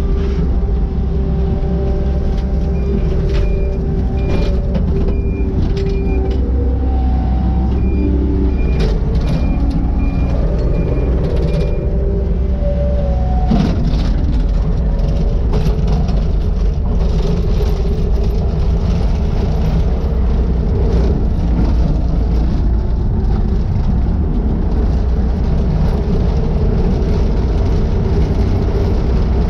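Takeuchi TL150 compact track loader's diesel engine running steadily under load, its pitch shifting as the machine works, with occasional knocks and clanks. A backup alarm beeps in a regular on-off pattern for several seconds in the first half.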